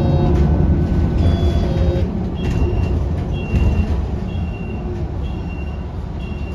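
Electric city bus heard from inside the cabin: a steady low rumble of the ride, with a whine of steady tones in the first two seconds. Then short high beeps repeat about once a second.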